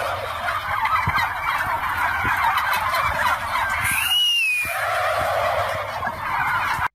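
A flock of farm poultry calling all at once, a dense continuous chatter, with one high call that rises and falls about four seconds in.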